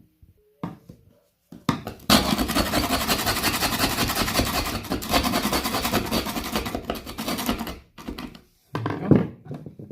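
Tool work on a wooden floorboard to get at and remove a screw hidden under the glue: a loud, dense grinding noise lasting about six seconds, then a knock about a second before the end.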